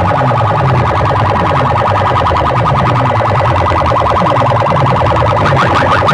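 A powerful DJ sound system blasting a loud electronic siren-like effect: quick falling sweeps repeat over and over low down, with rapid rising chirps higher up that grow stronger near the end, over steady held tones.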